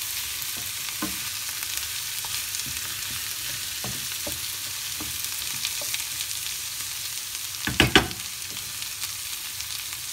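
Chicken pieces, mushrooms and chopped onion sizzling in a hot frying pan, with a steady hiss and small scrapes and clicks as a wooden spatula stirs them. Two sharp knocks about eight seconds in.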